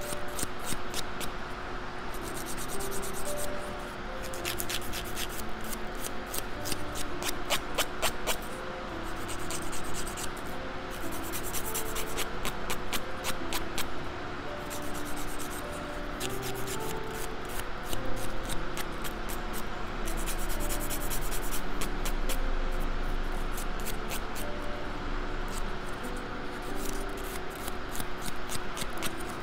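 Handheld nail file rasping against fingernail tips in runs of quick back-and-forth strokes with short pauses between them, over light background music.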